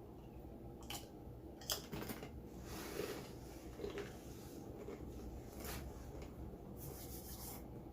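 Scattered crisp crunches and rustles of someone eating and handling food at the table, with sharper ones about a second in, about two seconds in and near the end.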